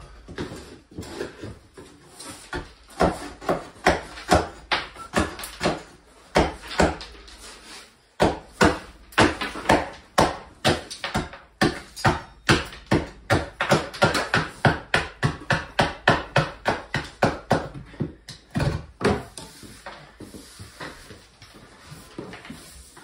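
Hammering on wood: a long run of sharp blows, about two to three a second, with a short break about eight seconds in, thinning out after about nineteen seconds.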